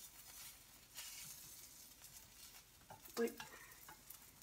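Cheese frying in a frying pan: a faint, steady sizzle, with a short louder sound about three seconds in.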